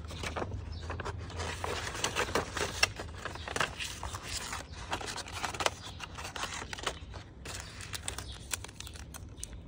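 Paper envelope and packaging rustling and crinkling as they are handled and unpacked by hand: a dense, irregular run of small crackles and rustles.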